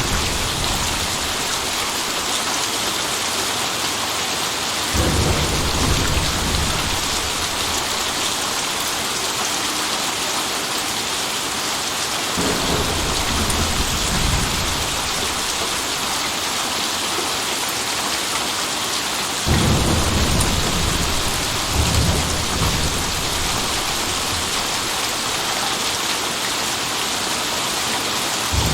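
Steady heavy rain with rolling thunder. Low rumbles come on suddenly three times, about 5, 12 and 19 seconds in, each lasting a few seconds; the last is the loudest.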